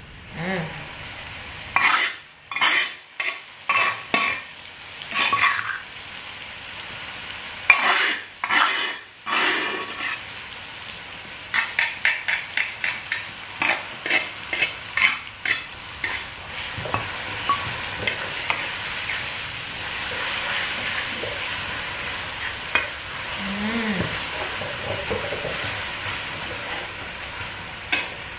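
Ground chilli spice paste scraped off a stone mortar into a hot oiled wok with a metal spatula: scrapes and clinks, then a run of quick sharp taps from the spatula, then the paste sizzling in the oil, building steadily as it is stirred.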